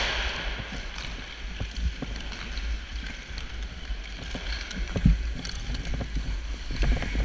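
Sled hockey sled gliding across rink ice: blades scraping and stick picks jabbing into the ice in strokes, over a steady low rumble, with a heavier knock about five seconds in.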